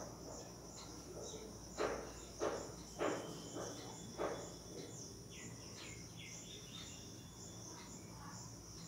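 Whiteboard marker writing: a few short knocks of the pen on the board and brief squeaks of the tip. Behind it a cricket chirps steadily in quick, even pulses.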